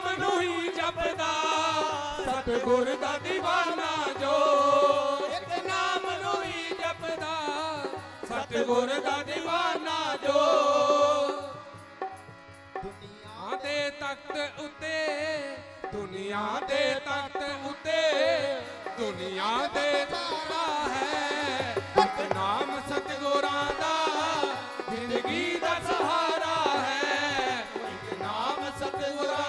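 Devotional Punjabi song: harmonium and dholak playing with singing, the voices wavering in pitch over a steady hand-drum rhythm. The music drops quieter for a few seconds about twelve seconds in, then picks up again.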